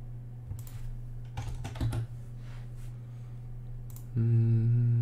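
A few keystrokes and clicks on a computer keyboard, over a steady low hum. About four seconds in, a louder steady low hum starts and is the loudest sound.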